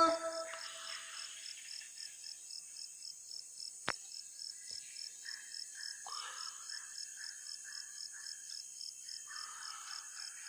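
Rainforest animal chorus: a steady high pulsing call about four times a second over a high insect hiss, with scattered chirping calls in the second half. A single sharp click comes about four seconds in.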